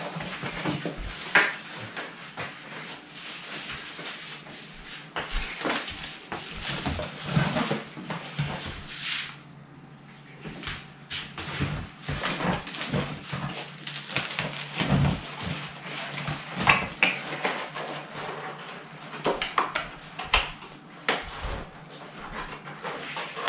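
Cardboard box, foam packing inserts and plastic wrap being handled while a desktop computer is unboxed: irregular rustling, scraping and light knocks, quieter for a moment about ten seconds in.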